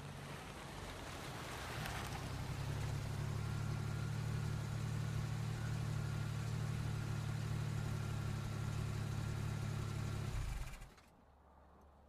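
Car pulling in to park: the engine grows louder over the first few seconds, runs steadily, then is switched off and cuts out suddenly near the end.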